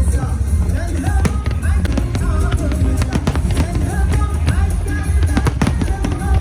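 Music with a heavy bass and a wavering melody line, mixed with the repeated bangs and crackles of a fireworks display.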